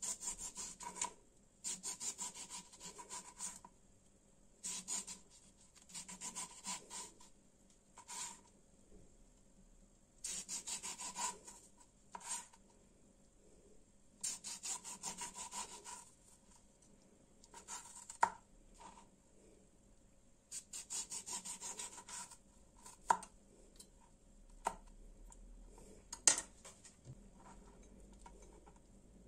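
Small kitchen knife sawing through a lemon onto a plastic cutting board, cutting thin slices in runs of quick back-and-forth strokes with short pauses between slices. A few sharp knocks in the second half.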